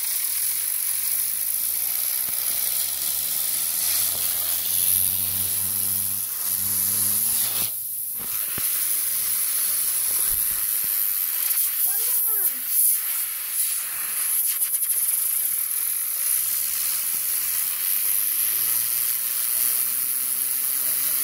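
Compressed air from an air compressor hissing steadily against a spinning fidget spinner, over a low hum that climbs gradually in pitch. The hiss briefly drops off about eight seconds in.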